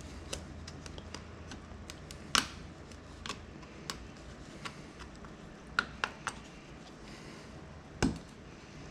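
Irregular small clicks and taps of hand tools working on a Surface Pro 3 tablet's case, about a dozen sharp ticks, two of them louder, one about two seconds in and one near the end.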